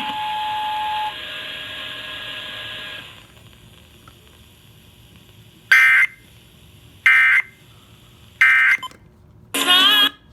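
Emergency Alert System end-of-message (EOM) data bursts: three short, identical screechy digital squawks about a second and a half apart, signalling the end of the alert test. Before them a steady electronic tone fades out within the first three seconds, and near the end a brief warbling sound follows.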